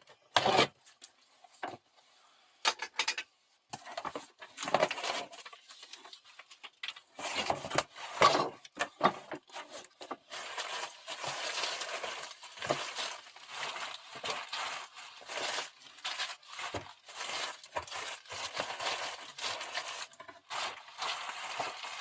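Hand tools and their packaging being handled: sharp knocks and clatters in the first few seconds, then denser rustling from about ten seconds in.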